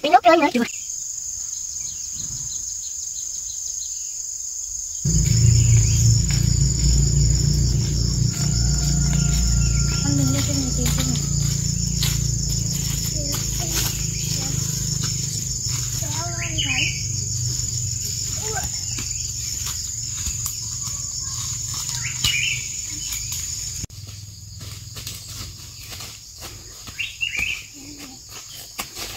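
Insects droning with a steady, high, even whine. A low rumble on the microphone comes in suddenly about five seconds in and drops away near the end.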